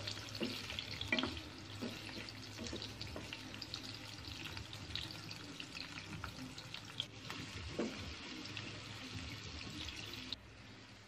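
Onion petals and chopped capsicum sautéing in hot oil in a nonstick pan: a soft, steady sizzle with a few light ticks. It cuts off near the end.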